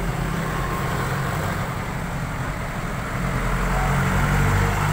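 Road traffic: a steady low engine rumble from vehicles on the street, swelling a little near the end.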